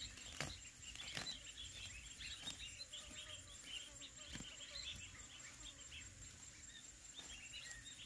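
Faint outdoor chorus of many small chirps from birds and insects, over a steady high-pitched insect whine, with a few soft clicks.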